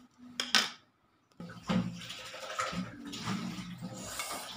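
A few clicks of a utensil against the plate and pan. Then, about a second and a half in, continuous sloshing of fish broth in the pan as the utensil works among the boiled sardines, over a steady low hum.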